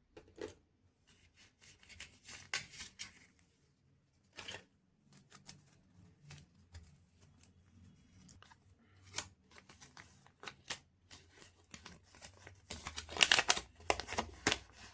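Wrapper being torn open and crinkled: scattered sharp crackles and rips, with a denser, louder burst of crinkling near the end.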